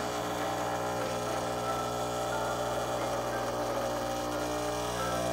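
Nuova Simonelli Oscar espresso machine's vibratory pump running with a steady hum, pushing against a portafilter pressure gauge and holding about 9 bar: a pressure test of the newly adjusted over-pressure valve (OPV).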